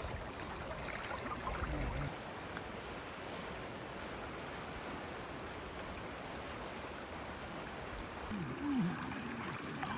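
River water flowing in a steady rush, with a low rumble in the first two seconds.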